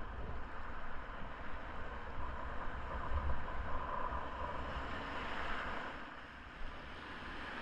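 Steady rush of whitewater river rapids, an even noise with a low rumble underneath.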